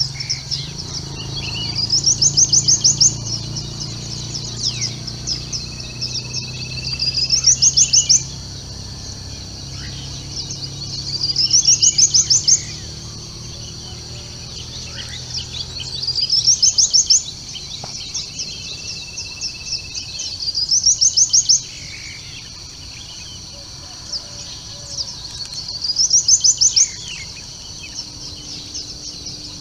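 Songbird singing at dawn: a fast trill of high notes rising in pitch, about a second long, repeated six times at intervals of four to five seconds, with other birds chirping softly in between. A low hum underneath fades out about halfway through.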